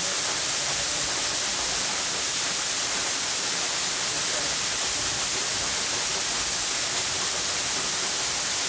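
Waterfall rushing steadily close by: an even, unbroken hiss, strongest in the high end.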